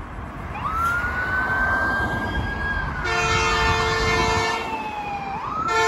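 An emergency-vehicle siren wailing in one long sweep, rising, holding, then sliding down and starting to rise again near the end. From about halfway, long blasts of a multi-note air horn sound with it, over a low rumble.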